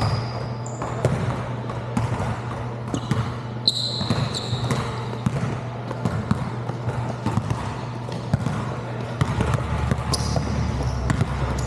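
Basketballs bouncing irregularly on a tiled indoor court floor as players dribble, with a few brief high sneaker squeaks and a steady low hum underneath.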